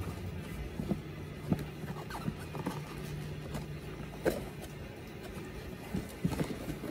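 Cloth dust bag rustling and being handled as a boot is pulled out of it, with a few sharp knocks from the boot and box. A steady low hum runs under it for part of the time.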